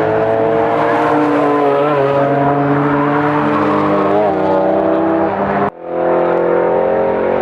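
Car engine pulling hard under acceleration on a racetrack, its pitch slowly climbing. About five and a half seconds in it cuts out for an instant, as at a gear change, then pulls again.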